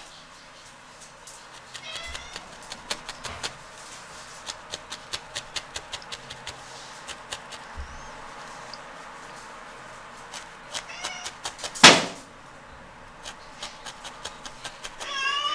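A domestic cat meowing: short calls about two seconds in, again about eleven seconds in, and a longer one at the very end. Under the calls run quick, regular clicks of a felting needle stabbing wool into a foam sponge, and a single sharp knock shortly before the last meow is the loudest sound.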